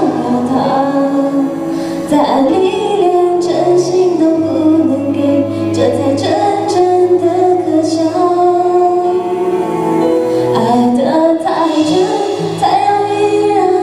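A woman singing a Mandarin pop song into a handheld microphone over instrumental accompaniment, holding long, sustained notes.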